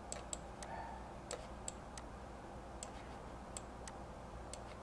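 Computer mouse buttons clicking, about ten short sharp clicks at irregular intervals, some in quick pairs, over a faint steady room hum.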